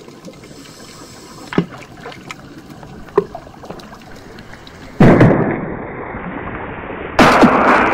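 Underwater recording of a fish bomb, a homemade blast-fishing explosive. Faint hiss with a couple of soft pops gives way, about five seconds in, to a sudden loud blast that dies away into a steady rumble, and a second loud burst comes near the end.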